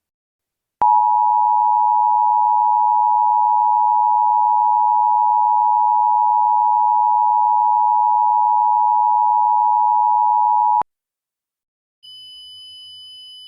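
Emergency Alert System two-tone attention signal: a loud, steady dual tone that starts about a second in, holds for about ten seconds and cuts off abruptly. Near the end, after a short silence, a much fainter steady high tone comes in.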